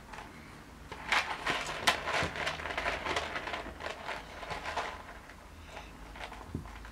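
Crackling and rattling of a small box of treats being rummaged by a child's hand, a dense run of short scraping clicks starting about a second in and dying down after about five seconds.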